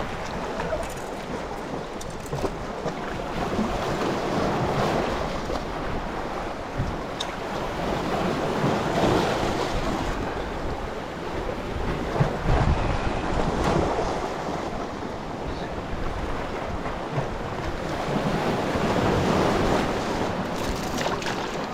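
Sea waves washing and splashing, swelling and fading every few seconds, with wind buffeting the microphone.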